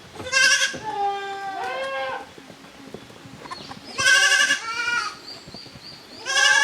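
Goat kids bleating, several calls at different pitches. A loud high bleat comes near the start, followed by lower wavering ones. Another loud bleat comes about four seconds in and one more near the end.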